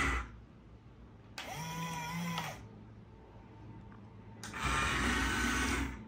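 Cheetah remote-control toy excavator's small electric gear motors whirring in short bursts as its boom and bucket move. One burst cuts off just after the start, another runs for about a second around two seconds in, and a third runs from about four and a half seconds to near the end.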